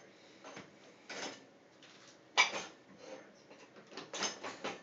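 Dishes and the dishwasher's rack clinking and rattling in a few short clatters as they are jostled, the sharpest about two and a half seconds in and a quick run of them near the end.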